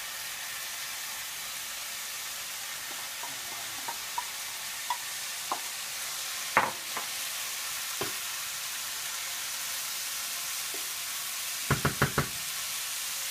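Shredded cabbage with onion and carrot sizzling steadily in a frying pan as a wooden spatula stirs it, with a few scattered knocks in the middle and a quick run of sharper knocks near the end.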